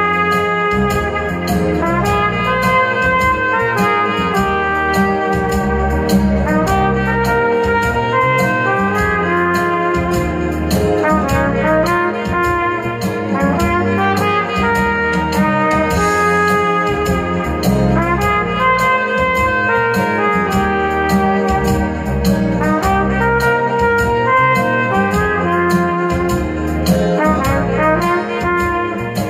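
Trumpet playing a slow melody over a recorded backing track with a bass line.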